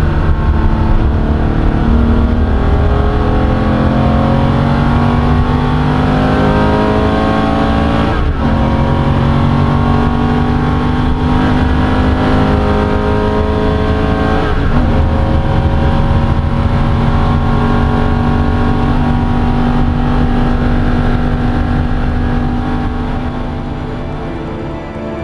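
Porsche 993 Carrera 2's air-cooled flat-six accelerating, heard from inside the cabin. Its pitch climbs steadily, with two quick upshifts about eight and fourteen seconds in, each dropping the pitch before it climbs again. The sound fades down near the end.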